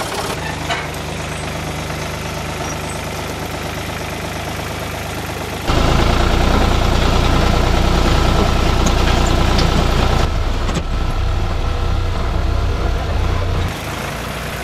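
Blue Ford loader tractor's engine running steadily while it tows another tractor. It is much louder from about six seconds in, then drops back near the end.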